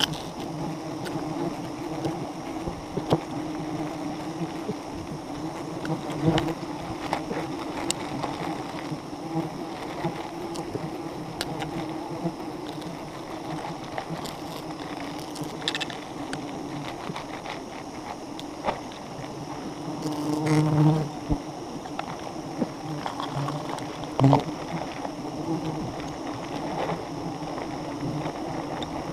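A colony of wild honeybees buzzing steadily and densely around their open comb, a continuous swarm hum. A few short knocks and rustles sound over it as the comb is handled.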